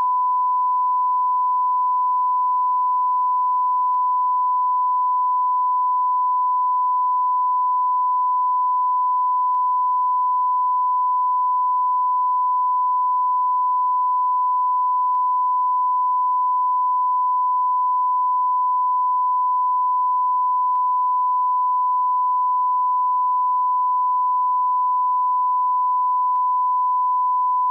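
A single steady electronic beep tone, a pure sine-wave pitch held without a break or change in loudness.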